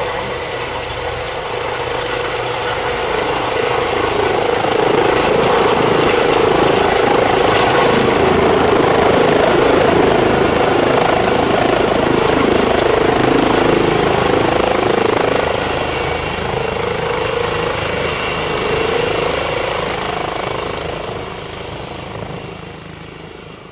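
Airbus Helicopters H135 twin-turbine helicopter running, rotor and engine noise with a steady high whine. Loud throughout, it swells over the first few seconds and fades away over the last several.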